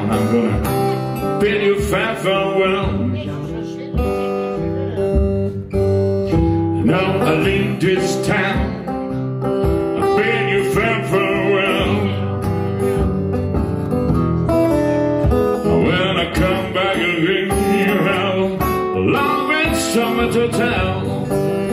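Acoustic blues instrumental break: a steel-string acoustic guitar played steadily under an amplified harmonica solo, its notes wavering and bending in short phrases.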